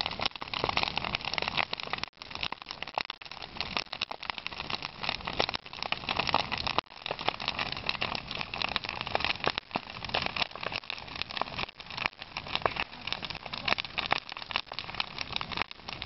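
Large wood bonfire burning hard, the burning wood crackling and popping densely and rapidly over a steady rush of flame.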